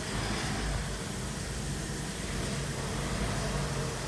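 Kia Sportage's G4NA 2.0-litre four-cylinder petrol engine idling steadily just after its first start following a rebuild. It runs slightly rough, which the mechanic puts down to one hydraulic lash adjuster that has not yet fully bled in.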